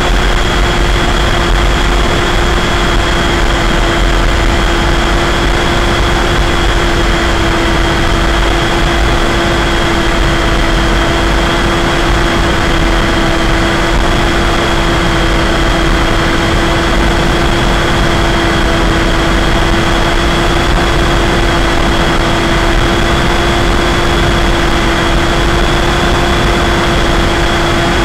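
Electric pusher motor and propeller of an EasyStar II RC foam plane running at a steady cruise throttle: an even hum with a high whine above it. It is heard through the plane's onboard camera along with low wind rumble on the microphone.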